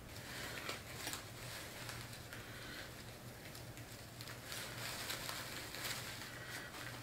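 Soft irregular rustling and handling noises as a person moves about and settles with a vase of artificial flowers, over a faint steady low hum.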